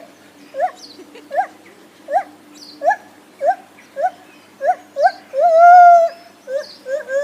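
Lar gibbon calling: a series of short rising hooting notes, about one every 0.7 seconds, building to a long, louder, wavering call about five seconds in, then short notes again.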